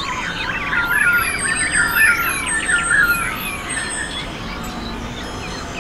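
Many birds calling at once: a dense chorus of overlapping chirps, whistles and squawks, with a rapid repeated high chirping above it.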